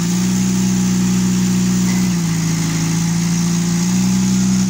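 A loud, steady low machine drone from a motor running. It steps down in pitch about two seconds in and back up near the end.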